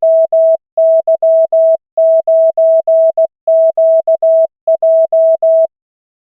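Computer-generated Morse code from the LCWO.net trainer: a single pure tone of about 650 Hz keyed into dits and dahs at 16 words per minute, sending a practice callsign character by character. It stops shortly before the end.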